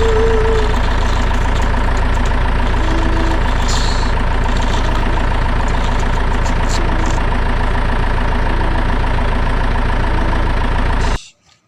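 Heavy truck engine idling steadily, with short faint tones every couple of seconds; it cuts off abruptly near the end.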